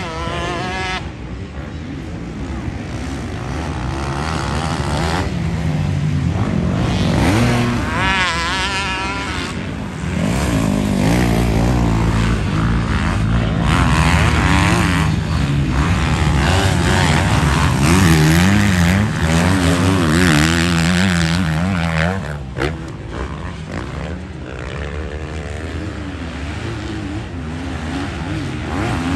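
Motocross bikes racing on a dirt track, their engines revving up and dropping off again and again as riders shift through the gears and brake for corners.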